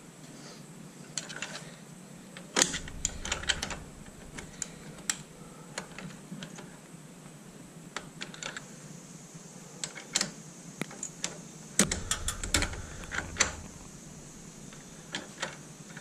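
Irregular, sharp metal clicks and taps of a screwdriver working on a chrome motorcycle foot peg, in two bunches about three seconds in and again about twelve seconds in, with single clicks between.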